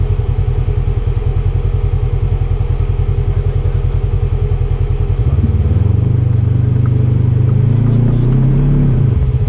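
Side-by-side UTV engine idling with an even low pulsing. About five seconds in it is revved up and held steady for roughly three and a half seconds, then drops back to idle near the end.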